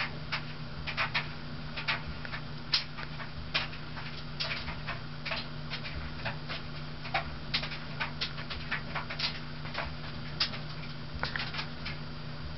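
A steady low electrical hum, with light clicks and ticks scattered irregularly throughout.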